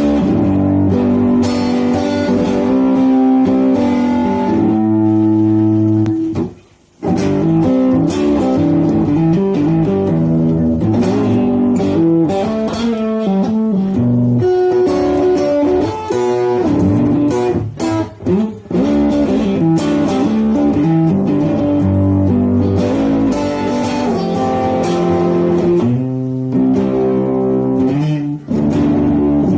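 A 1994 Fender Japan guitar being played, a continuous run of plucked notes and chords that stops briefly about six and a half seconds in and then carries on.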